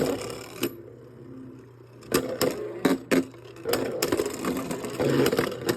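Beyblade spinning tops in a plastic stadium, clacking sharply against each other several times, then clattering in a fast, dense run near the end as they grind together.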